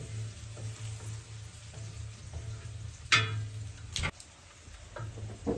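A small knife peeling garlic cloves: papery skins crackling, with a few sharp clicks and scrapes of the blade, the loudest about three and four seconds in, over a steady low hum.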